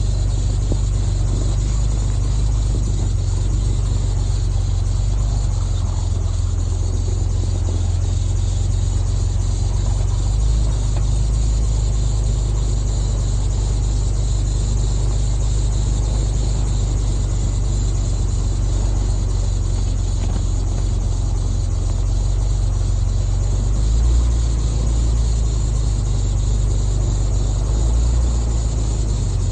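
Off-road vehicle driving slowly along a snowy trail: a steady low rumble of engine and tyres, swelling slightly about 24 seconds in and again near the end.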